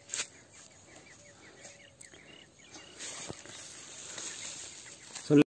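Rustling of dry leaf litter as a quail is taken by hand from under an old fan-guard trap, over faint high chirping. The rustle grows louder from about three seconds in, and a short loud thump comes just before the sound cuts off.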